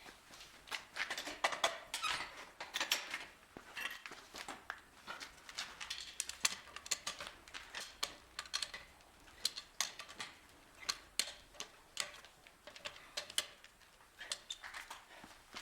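Irregular light metallic clinks and knocks of hand tools and wheel hardware being handled, with no steady rhythm.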